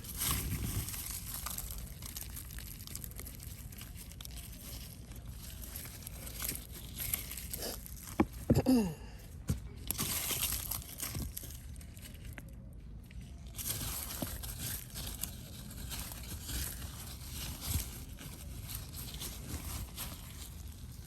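Gloved hands digging and rummaging through soil in a potato-growing bin: continual rustling, crunching and scraping, with a few louder knocks and a short falling squeak about eight to nine seconds in.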